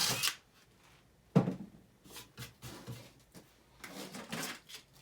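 A power drill boring a 1/8 inch hole into plywood stops just after the start, then scattered light knocks and clatter of tools and wood being handled, with one sharp knock about a second and a half in.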